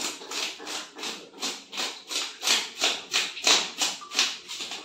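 Rhythmic scraping and paper rustling, about three strokes a second, as a whole hilsa fish is worked over by hand on a sheet of paper.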